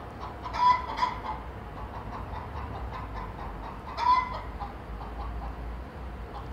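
Rooster clucking: two short calls close together about half a second in, and another about four seconds in.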